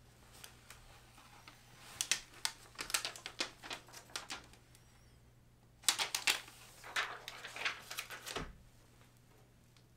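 Two quick runs of light taps and clicks on a hard surface, each lasting two to three seconds, with a soft thump at the end of the second run.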